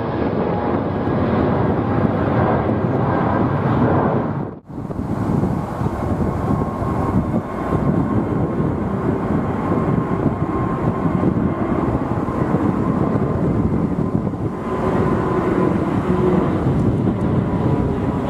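Jet noise from a departing Boeing 777-200ER passing overhead, broken off abruptly about four and a half seconds in. Then the steady jet noise of an Airbus A350-941's Rolls-Royce Trent XWB engines climbing overhead, with a faint high whine over the rumble.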